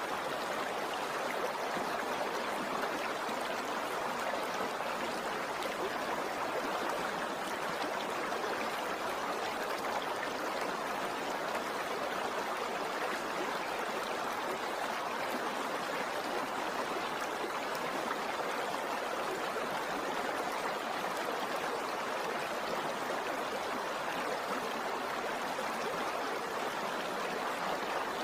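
Steady rushing of a stream: an even, unchanging wash of flowing water.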